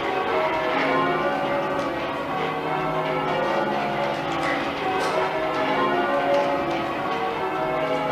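A ring of ten church bells rung full circle in change ringing: a steady stream of strikes, one bell after another, each note ringing on into the next.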